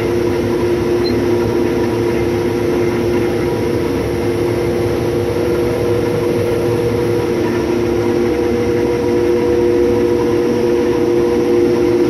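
6130 combine harvester running steadily while cutting spring wheat: a constant machine drone with two steady humming tones held over it.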